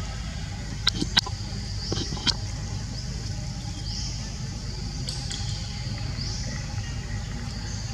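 Background ambience: a steady low rumble under a high buzzing drone that swells up again and again every second or two, with a few sharp clicks in the first couple of seconds and once more about five seconds in.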